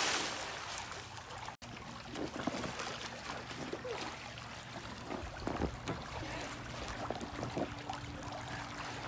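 Swimming-pool water: the spray from a jump-in settles over the first second or so. Then the water laps and sloshes, with small irregular splashes as swimmers paddle about.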